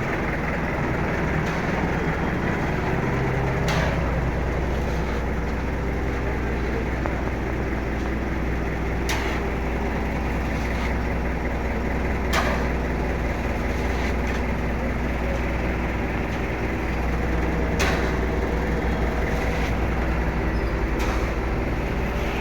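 Heavy machinery running with a steady low drone, broken by sharp metallic knocks every few seconds.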